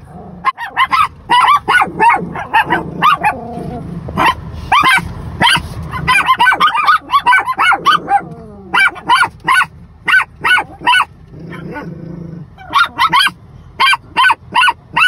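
Chihuahuas barking excitedly inside a car, many short barks in quick succession with a couple of brief lulls. They are worked up at someone passing outside.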